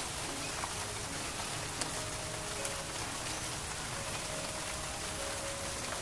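Steady rainfall: an even hiss of drops, with one sharper drop tap just under two seconds in.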